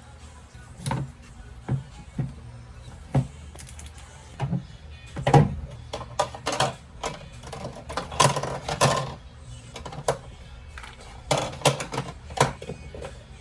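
Irregular knocks, taps and clicks of objects being handled and set down on a hard surface, with a busier patch of rattling and rustling about two-thirds of the way through.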